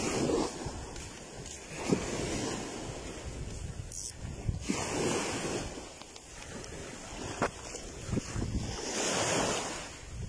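Choppy storm waves washing onto the shore, with gusty wind buffeting the microphone. The rushing noise swells and eases every few seconds, with a few brief sharp knocks.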